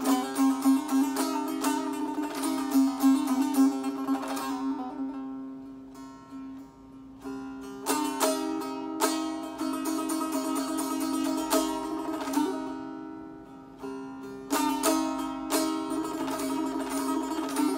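Tanbour, a long-necked fretted lute, improvising in maqam Hejaz: the strings are struck with the fingers of the right hand in runs of quick strokes over a steady ringing low note. The playing eases to softer, sparser notes about five seconds in and again about thirteen seconds in, then picks up again.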